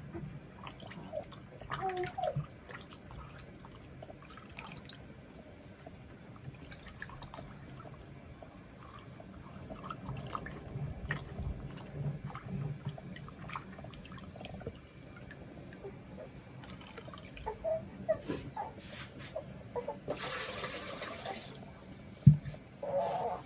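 Water dripping and trickling, with scattered light clicks and a sharp knock near the end.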